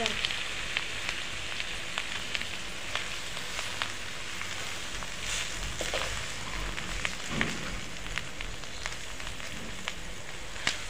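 Fish roe frying in oil in an aluminium wok over a low wood fire: a steady sizzle with frequent small pops and clicks, while a steel ladle stirs the mixture.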